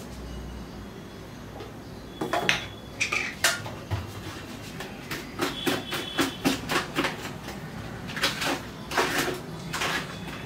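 Dishes and utensils clinking and knocking as a bowl is handled at a kitchen sink: a run of sharp clatters starting about two seconds in, busiest in the middle and again near the end.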